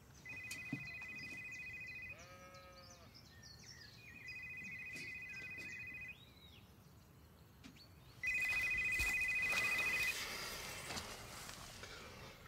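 A phone ringing with a trilling two-tone ring, three rings of about two seconds each with pauses between, the third one louder. A farm animal bleats once, just after the first ring.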